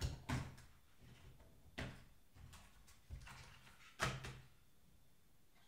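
Plastic housing of a Bang & Olufsen Beolink 7000 remote control knocking and clicking as its battery compartment is pried out by hand: a handful of separate sharp knocks, the loudest about four seconds in.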